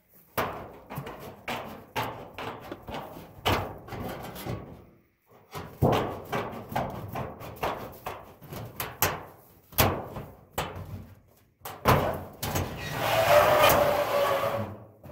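Repeated knocks and scrapes as a wooden plug is worked out of a hole in a galvanized sheet-metal wall. Near the end comes a longer scrape of metal on metal as a black steel stovepipe is pushed into the hole.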